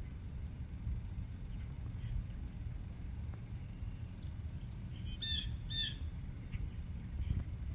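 Two short high chirping animal calls about half a second apart, a little past the middle, over a steady low outdoor rumble. A faint thin whistling glide comes about two seconds in.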